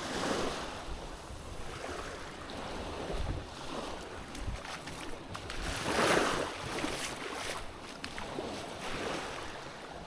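Small waves washing onto a sandy beach, the wash swelling and ebbing and loudest about six seconds in.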